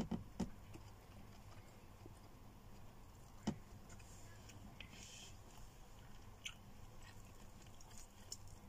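A person chewing food close to the microphone, with a few sharp smacking clicks from the mouth, the loudest about a third of the way in, over a faint steady low hum.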